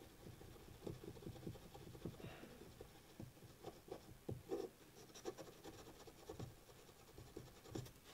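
Faint, irregular scratchy rubbing of a cotton swab charged with polish on the cam of a Glock 17 Gen4 trigger, with small ticks as the part shifts in the fingers. The metal contact surface is being smoothed to take the gritty feel out of the trigger pull.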